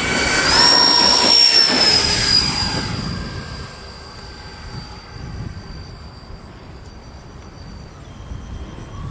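Twin electric ducted fans of a Skymaster A-10 radio-controlled model jet whining at full throttle for takeoff, the pitch jumping up in the first second. The whine is loudest for the first two to three seconds, then fades as the model climbs away, and steps down in pitch near the end as the throttle is eased.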